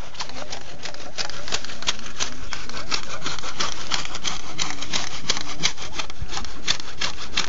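Hand saw cutting through a tree trunk, in quick, even back-and-forth strokes of about three a second.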